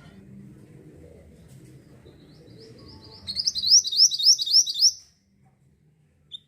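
Mantenan songbird singing: a quick run of about seven high, rising whistled notes, faint at first and loudest between about three and five seconds in. A single short note follows near the end, over a faint low rumble.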